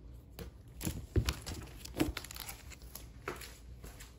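Plastic-bagged comic books being handled: a few short crinkles of the plastic sleeves and soft taps as a book is lifted off an acrylic stand and set aside.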